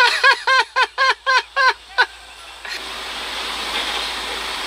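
A high-pitched burst of rhythmic laughter, about four short calls a second, stops about two seconds in. Then a steady hiss of water spraying and gushing from a broken pipe takes over.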